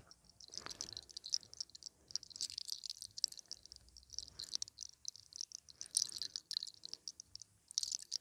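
Long hair being lifted, stretched out and combed through by fingers close to the microphone: a dense, irregular crackly rustling with quick ticks.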